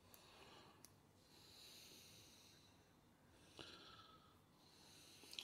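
Near silence: soft breathing close to the microphone, with a few faint light clicks.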